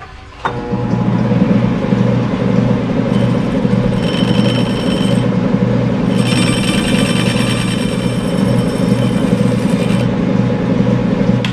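Metal lathe starting up about half a second in and running steadily, turning a brazed gear while a cutting tool skims the tops of its teeth. The interrupted cut across the teeth adds a high ringing chatter twice in the middle.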